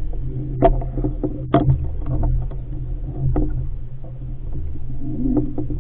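An RS500 sailing dinghy under way: water rushing and splashing along the hull with wind on the boat-mounted camera, a steady low rumble, broken by a few irregular sharp knocks and splashes.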